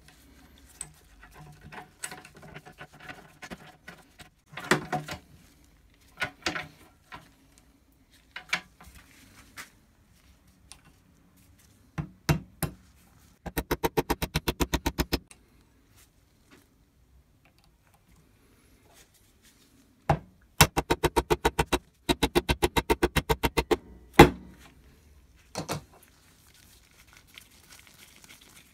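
Scattered metal clicks and knocks of parts being handled, then three runs of rapid, evenly spaced metallic taps, about a dozen a second, as a ball bearing is driven down onto a drill press spindle through a tube driver in a vise. The last run ends in one hard knock, the loudest sound.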